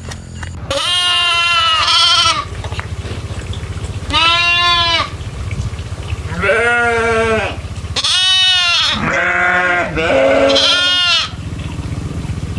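Farm livestock bleating: a run of about six pitched calls, each roughly a second long, with short gaps between them. A steady low hum runs underneath.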